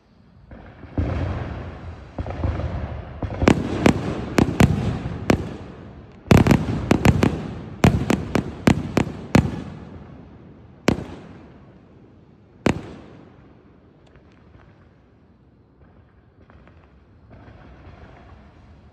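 Aerial fireworks display: a rushing noise of shells going up, then rapid strings of sharp bangs from bursting shells, densest around the middle, followed by two single bangs before it dies away.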